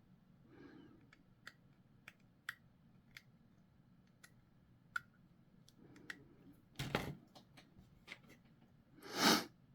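Small plastic model-kit parts being handled and fitted together: scattered light clicks and taps, with two louder, brief scuffing sounds about seven and nine seconds in.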